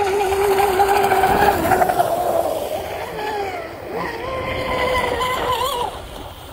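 Pro Boat Blackjack 42 RC catamaran's brushless motor whining at high speed across the water. The pitch sags a couple of seconds in, climbs back about a second later, and the whine drops away near the end as the boat moves off or throttles down.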